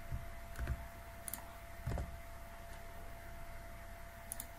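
A handful of scattered, faint clicks of a computer keyboard and mouse being worked at a desk, over a faint steady hum.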